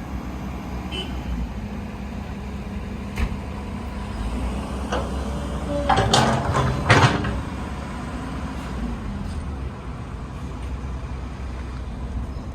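Komatsu PC130-6E excavator's S4D102E four-cylinder diesel engine running steadily at idle. A sharp click comes about a quarter of the way in, and a loud cluster of knocks follows about halfway through.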